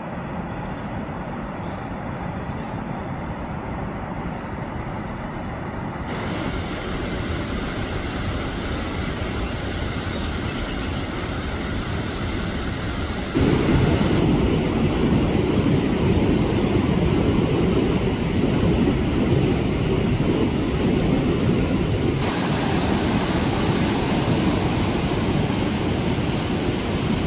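Steady rushing of whitewater at Sandstone Falls on the New River. It shifts abruptly a few times and gets markedly louder about halfway through.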